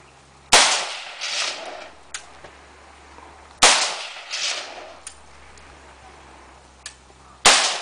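Three single rifle shots from a Colt M4 carbine in 5.56 mm, fired deliberately about three to four seconds apart. Each sharp crack is followed by a softer second report about a second later.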